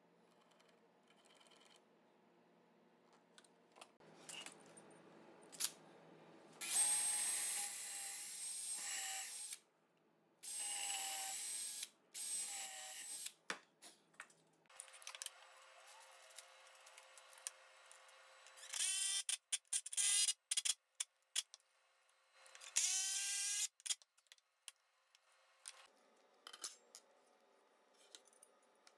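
Power drill run in several short bursts, drilling pilot holes into a Baltic birch plywood block, with the motor's pitch climbing as it spins up and scattered clicks and knocks between bursts.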